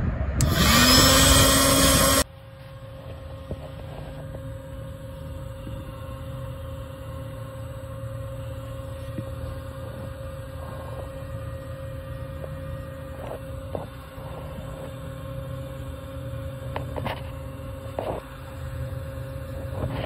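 Small electric air pump switched on and spinning up with a loud rising whine, blowing air into a vehicle exhaust through the muffler. About two seconds in it drops suddenly to a fainter steady hum of the pump running, with a few faint clicks.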